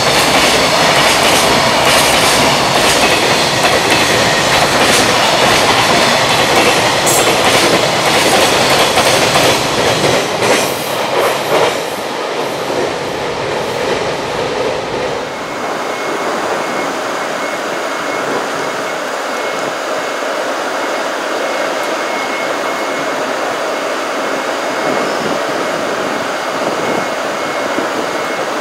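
Container wagons of a freight train rolling past at speed, wheels clattering over rail joints with some squeal, the clatter dying away about halfway through as the last wagons pass. Then a steady, quieter hum with a faint high whine.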